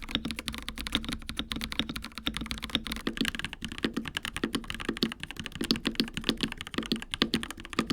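Akko 5075B Plus mechanical keyboard with Akko Cream Yellow switches being typed on quickly and continuously: a dense, steady run of keystroke clacks.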